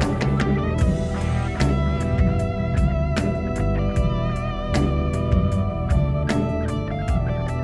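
Live worship band playing an instrumental passage: electric guitar with wavering held notes over a steady drum kit beat and bass.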